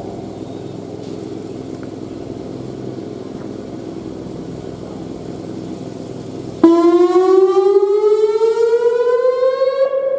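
Whelen WPS-2910 electronic outdoor warning siren starting its whoop tone about six and a half seconds in: a loud tone with overtones that sweeps steadily upward, the whoop stage of a voice-and-whoop test cycle. Before it there is a quieter stretch of faint background sound.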